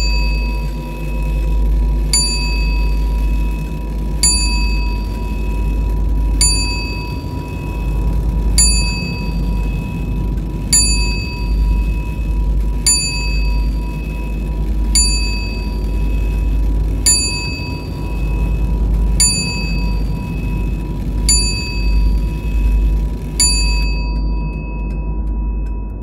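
Background music: a bell-like chime struck about every two seconds, a dozen times, over a steady deep bass drone. The chimes stop a couple of seconds before the end while the drone carries on.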